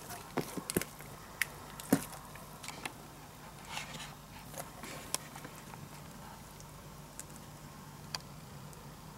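Footsteps crackling and snapping on dry twigs and debris, a quick run of sharp clicks in the first two seconds, then only a few scattered ones.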